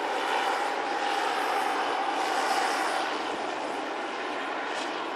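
Turbine engine and rotor of a large model BO-105 helicopter in flight: a steady whine over rotor noise, dropping slightly in level after the middle.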